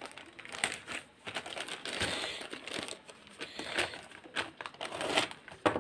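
Plastic courier mailer bag crinkling and rustling in irregular crackles as it is handled and cut open with a utility knife.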